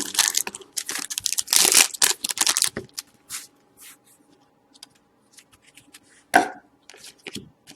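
Trading-card foil packs and cards being handled: crinkly rustling and tearing in quick bursts for about the first three seconds, then sparser soft card clicks over a faint steady hum. One short, louder sound comes about six seconds in.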